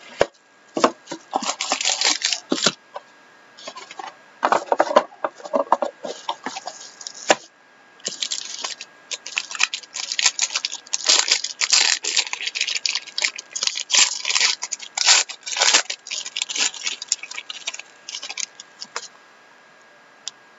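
Plastic shrink wrap and packaging on a trading-card box being torn off and crinkled by hand, in quick irregular rips and rustles that stop near the end.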